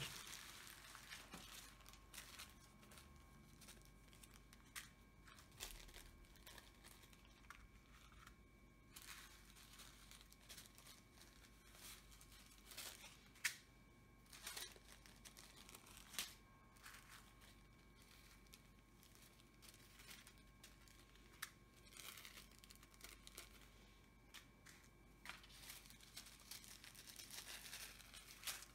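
Faint crinkling and rustling of small plastic zip-lock bags of diamond painting drills being picked up and sorted, with scattered light clicks.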